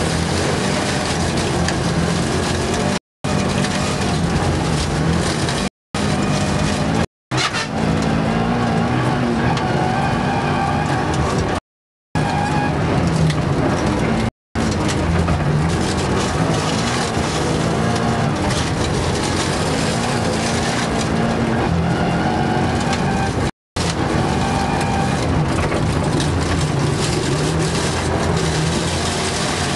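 Rally car's engine heard from inside the cabin, driven hard on a snow course, its pitch rising and falling as the driver accelerates and lifts, over a steady rush of tyre and snow noise. The sound cuts out completely for a moment about six times.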